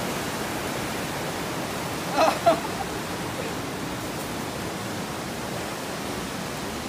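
Steady rushing of fast-flowing river water, with a person's short shout about two seconds in.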